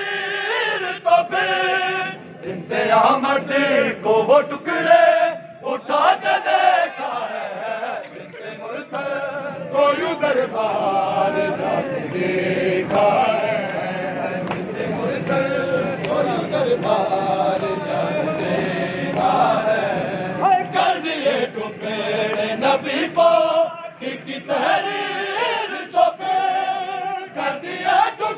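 A group of men chanting a noha, a Shia mourning lament, in unison, led by a reciter singing from a sheet. The phrases come separately at first, swell into a dense, continuous chorus through the middle, then separate again near the end.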